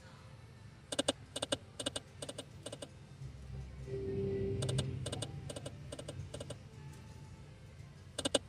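Video slot machine reels stopping one after another, each stop a sharp click, in two quick runs of clicks over a low steady casino hum. A short steady tone sounds about halfway through.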